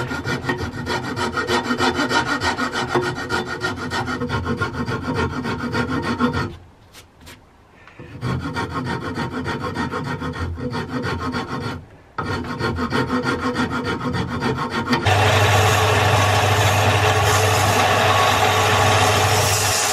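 A hand rasp scraping in quick, repeated strokes across a wooden handle blank clamped in a vise, with two short pauses. About 15 seconds in it gives way to a bench belt-and-disc sander running steadily with a low hum while the wood is ground against the moving belt.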